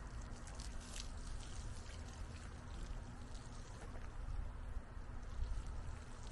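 Water poured from a container onto garden plants and soil, splashing and trickling, over a low rumble of wind on the microphone.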